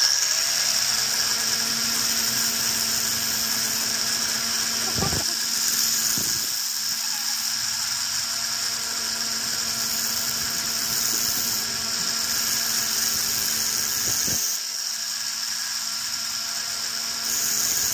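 Angle grinder running at speed with a steady whine, a coated E6013 welding electrode held against the edge of its spinning disc.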